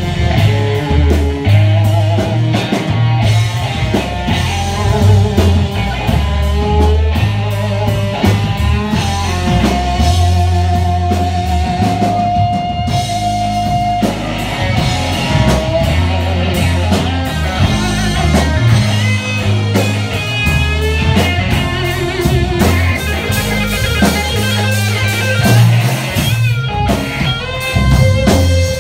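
Live rock music: a Stratocaster-style electric guitar played through an amplifier, over bass and drums. Around ten seconds in the guitar holds one long sustained note for about four seconds.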